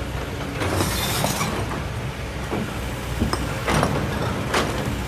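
Kobelco SK200 excavator's diesel engine running steadily, with sharp clinks and knocks of stones striking metal a few times.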